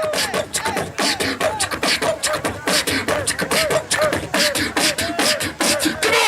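Beatboxing: a fast run of mouth-made percussion hits with short pitched vocal sounds between them, laying down a hip hop beat.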